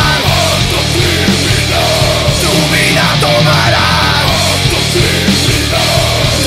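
Heavy metal band playing at full volume: distorted electric guitars, electric bass and a drum kit in a fast, dense passage.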